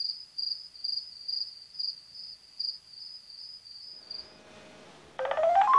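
Crickets chirping, about two high, pure chirps a second. About five seconds in, a louder electronic tone starts and glides steadily upward: the bedside phone's alert going off.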